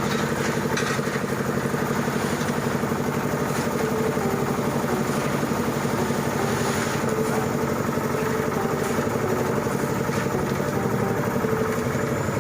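An engine running steadily at a constant speed, with an even, fast firing pulse.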